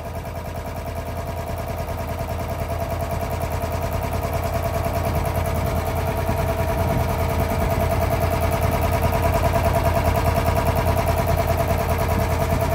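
Belt-driven piston air compressor running and pumping up its tank, a fast even chugging from the pistons that grows gradually louder. It runs on until its pressure switch cuts it out by itself at 8 bar.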